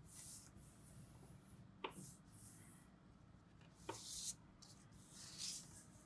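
Faint rustling and rubbing of a sheet of origami paper as fingers slide along and crease a fold, in several short swishes, with two light taps of paper or fingers on the table about two and four seconds in.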